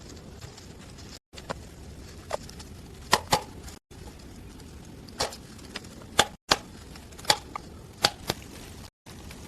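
Sharp knocks, some single and some in quick pairs, at irregular spacing over a steady background hiss. The sound breaks off abruptly several times, as at edit cuts.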